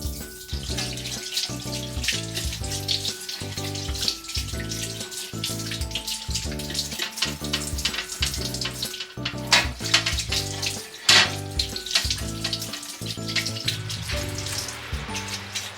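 Water running from a kitchen tap, with two brief louder clatters a little past the middle, over background music.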